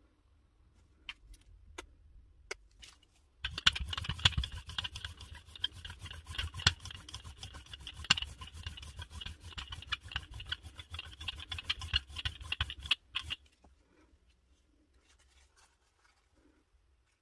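A brayer rolling paint across a gel printing plate: a dense, sticky crackle of rapid ticks that starts a few seconds in and stops abruptly about four seconds before the end. Before it, a few single clicks as paint is squeezed out of tubes.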